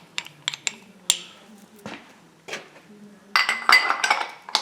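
Loose steel parts of an impact wrench's hammer mechanism clinking and tapping together as they are handled, a scatter of single sharp clicks, then a dense run of clinks and rattling about three and a half seconds in.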